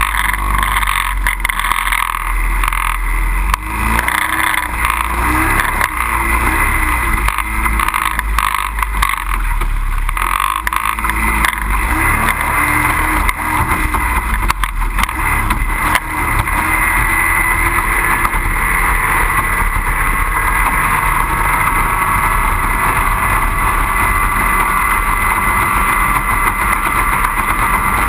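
25 hp outboard racing boats running on the water: a steady, high engine whine that shifts slightly in pitch in the second half.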